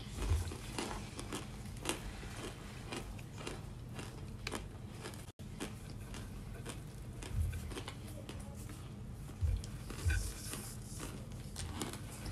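Crunchy baked cornstarch chunks being bitten and chewed close to the microphone: irregular crisp crackles, with a few dull low thumps. The audio cuts out briefly about five seconds in.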